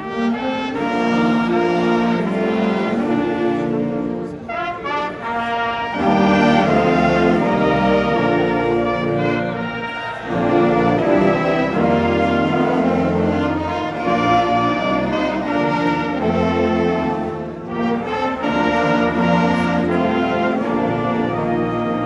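College pep band playing a brass-heavy tune on saxophones, trumpets and trombones over a drum kit, with a strong bass line. The music comes in phrases, with short breaks about five, ten and seventeen seconds in.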